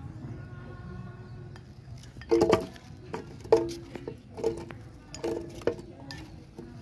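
A spoon knocking and scraping against a ceramic bowl as chopped apple and corn kernels are spooned into a plastic blender jug: a string of clinks with a short ring, starting about two seconds in and coming roughly one or two a second.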